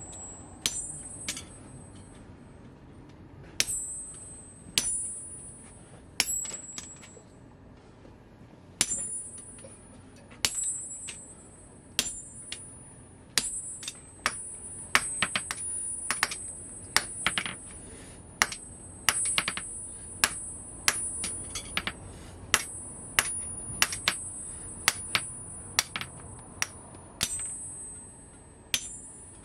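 Hand hammer striking red-hot steel on an anvil, each blow leaving a high metallic ring. The blows come irregularly, about one to two a second, with short pauses between runs.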